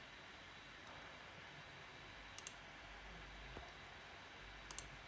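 Computer mouse clicking: two short double clicks about two seconds apart, over near-silent room noise.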